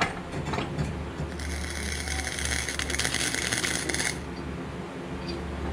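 Electric welding arc on thin 16-gauge steel, a steady crackle lasting under three seconds that starts about a second and a half in and cuts off abruptly. A few small clicks come before it.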